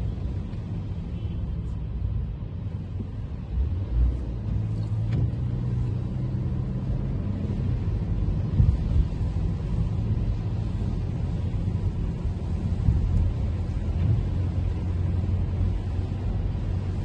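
Toyota Camry driving on wet city streets: a steady low rumble of engine and road noise with a faint hiss of tyres on wet pavement, and a low thump about four seconds in.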